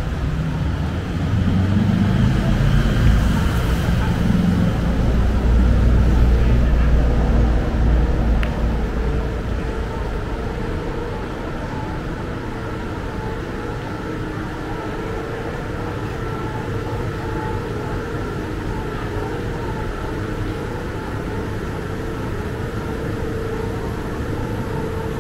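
Road traffic on a busy city street. A vehicle rumbles loudly past in the first several seconds, then the traffic settles to a steady hum.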